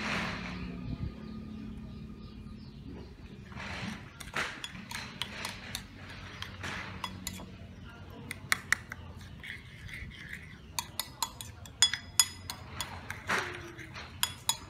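Metal spoon stirring a garlic and chili dipping sauce in a ceramic bowl, clinking against the bowl. The clinks are few at first and come thick and fast in the second half.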